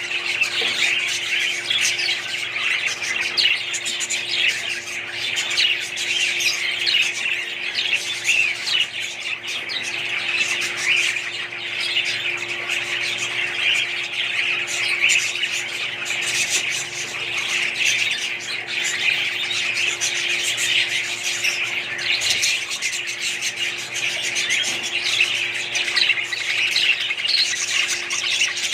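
A flock of budgerigars chirping and squawking all at once in a continuous chatter, with a steady low hum underneath.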